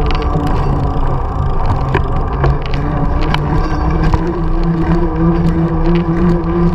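Mountain bike's knobby tyres humming on pavement while riding, a steady drone that rises slightly in pitch about four seconds in as speed picks up, with scattered light clicks and rattles from the bike.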